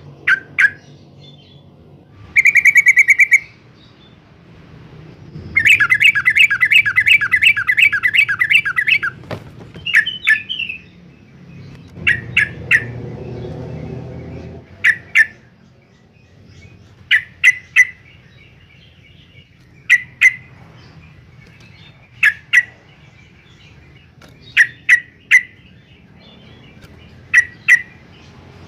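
Yellow-vented bulbul calling: short sharp chip notes, often in pairs or threes, with two bursts of fast scolding chatter, one about a second long and one about three and a half seconds long.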